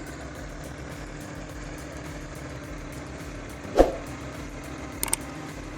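Heavy vehicle engine running steadily at low revs, with a single sharp knock about four seconds in and a couple of small clicks near the end.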